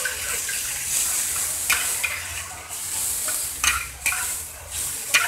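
Oil sizzling in a wok as a metal spatula stirs and scrapes the food around, with a few sharp clinks of the spatula against the wok.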